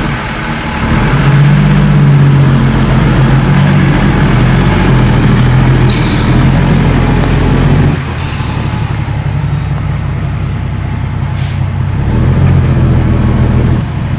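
Six-wheel dump truck's diesel engine running as the truck pulls forward after tipping its load. The revs rise about a second in, ease off around eight seconds and pick up again near the end, with a brief hiss about six seconds in.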